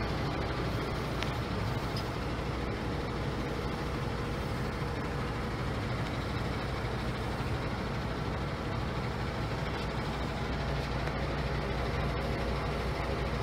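Diesel engine of a 2015 International ProStar truck tractor idling steadily, a low even hum heard inside the sleeper cab.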